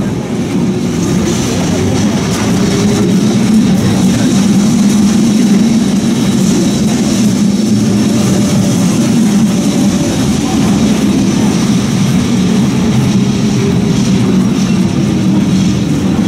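Classic two-axle electric tram running along its rails: a steady low rumble with a faint wavering hum, getting a little louder over the first couple of seconds.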